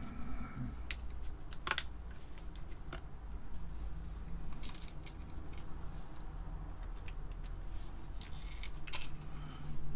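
Small spacers clicking and tapping as they are handled, picked from a plastic parts box and set onto a circuit board: a dozen or so scattered light clicks over a low steady hum.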